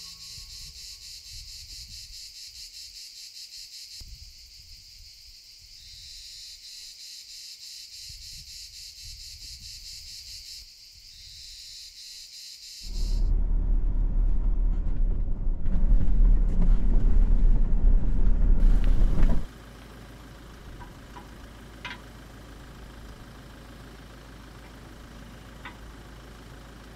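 Insects shrilling steadily in a high, rapidly pulsing band for about the first thirteen seconds. Then a vehicle drives along a road with loud, deep engine and wind rumble for about six seconds, which cuts off sharply. After it comes a quieter steady low hum with a few faint clicks.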